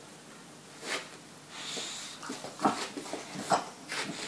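Boxer dog making several short, sharp sounds with its nose and mouth near the floor, the loudest two a little past the middle.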